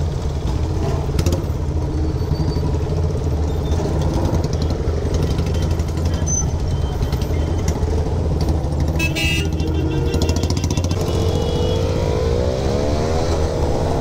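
Motorcycle engines running in slow traffic. About nine seconds in there is a short burst of rapid pops, and near the end an engine revs up.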